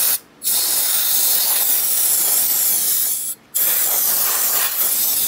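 Can of compressed air (air duster) spraying in blasts to blow dust out of an amplifier's circuit board. There is a short blast, then a long hiss of about three seconds, a brief break, and another long hiss.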